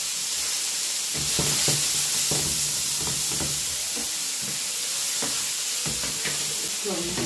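Sausage slices and mixed vegetables frying in a pan with a steady sizzle, with irregular short knocks and scrapes through the middle.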